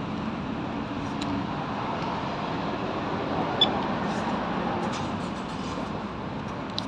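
Steady road-traffic and vehicle noise, with one brief faint high beep a little past the middle.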